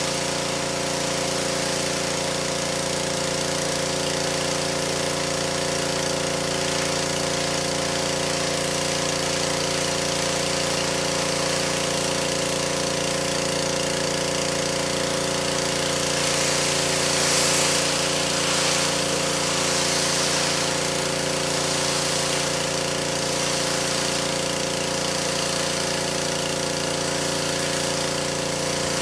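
Pressure washer running steadily, its motor's even drone under the hiss of the spray. A little past halfway the spray hiss grows louder for a few seconds.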